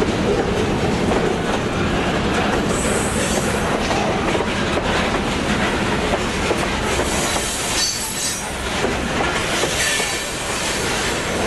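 Model railroad freight cars rolling past at close range, a steady clatter of wheels on the track with brief high wheel squeals on the curve.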